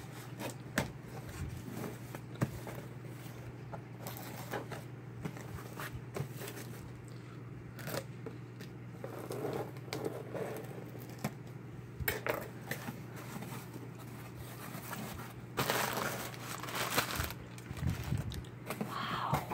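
A kitchen knife slitting the packing tape on a cardboard shipping box, with scattered scrapes and taps of the blade along the seam. About sixteen seconds in there is louder rustling and crinkling as the cardboard flaps are pulled open.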